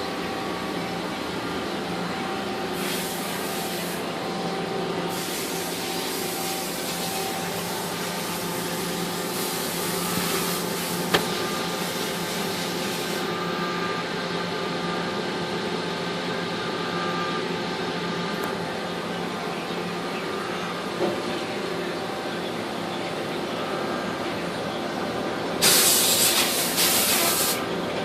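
Mazak 410A vertical machining center running: a steady mechanical hum with several whining tones. A hissing spray switches on and off a few times, longest from about five to thirteen seconds in and again briefly near the end.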